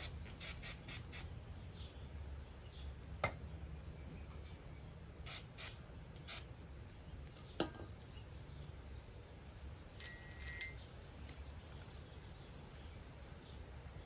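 Scattered metal clicks and clinks as a wheel stud installer tool and wheel studs are handled and fitted, with a short run of ringing metallic clinks about ten seconds in.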